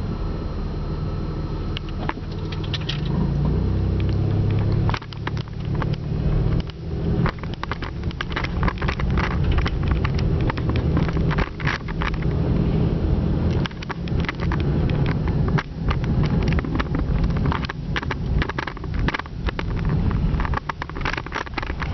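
Road and engine noise inside a moving car's cabin: a steady low rumble, with frequent crackles and knocks from about five seconds in.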